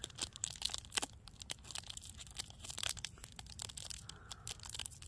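Plastic wrapper of a caramel snack bar being torn open and crinkled in the hands, a run of irregular crackles.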